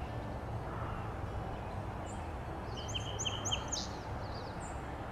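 Song sparrow singing: a short burst of quick, sweeping high notes about two seconds in, over a steady low outdoor rumble.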